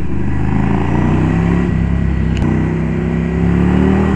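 Ducati Scrambler Icon's air-cooled L-twin engine running under way in traffic, its note shifting slightly with the throttle.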